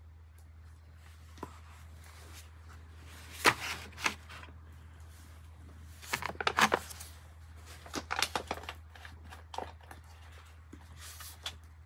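Scattered short clicks and rustles of things being handled and set down: a plastic drink pouch moved and a paper notepad and pencil laid on the floor. A steady low hum runs underneath.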